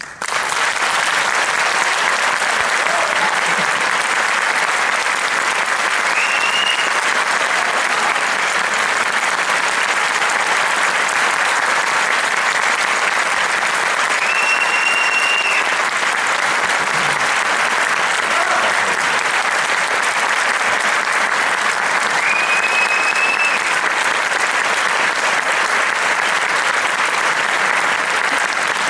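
Audience applauding loudly and steadily, breaking out suddenly as the orchestra's last note dies away. Three short high tones rise briefly over the clapping.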